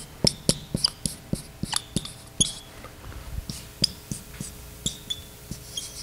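Dry-erase marker writing on a whiteboard: irregular taps and short high squeaks as letters are drawn stroke by stroke.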